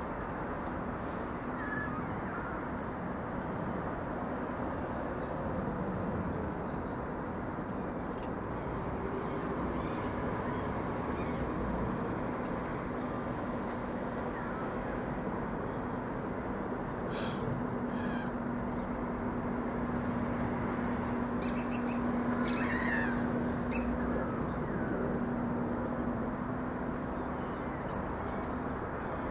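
Small birds chirping in short, repeated high calls, with a few harsher calls about three-quarters of the way through, over a steady low rumble and hum.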